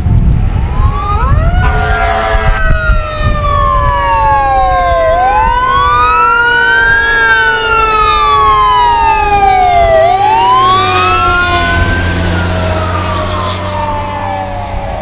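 Emergency vehicle sirens wailing, one rising and falling in pitch about every five seconds over other steady siren tones that slowly drop in pitch. A vehicle engine's low rumble comes in near the end.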